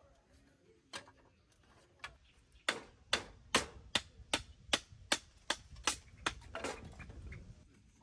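Small hatchet splitting firewood into kindling: after a couple of faint knocks, a steady run of about ten sharp wooden knocks, two or three a second, starts about two and a half seconds in.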